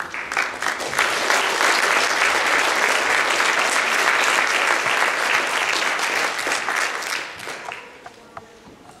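Audience applauding in a large hall: a few claps, full applause from about a second in, then it fades to scattered claps near the end.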